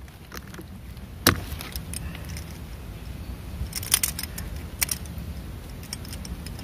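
Metallic clicks and jingling from fishing gear being handled in a small boat, a metal fish lip grip among it. There is a sharp knock about a second in and two clusters of clicks around four and five seconds in, over a steady low rumble.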